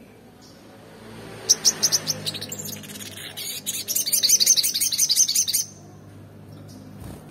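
Olive-backed sunbird (sogon) singing: quick high-pitched chirps begin about a second and a half in and build into a fast twittering trill, which stops abruptly near the end.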